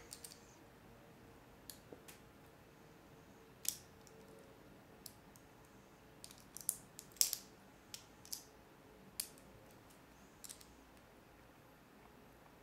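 Lego pieces clicking and tapping as they are handled and pressed together: a dozen or so sharp, irregular clicks, thickest between about six and nine seconds in.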